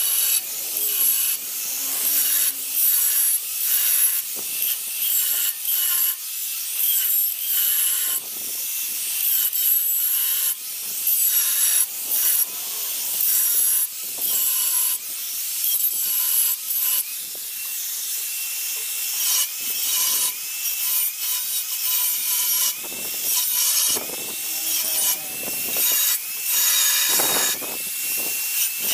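Makita angle grinder with a flap disc grinding rust off the steel plate of an old air compressor tank: a harsh abrasive scrape over the motor's whine. It goes in repeated strokes, swelling and easing every second or two, and the whine wavers in pitch in the second half.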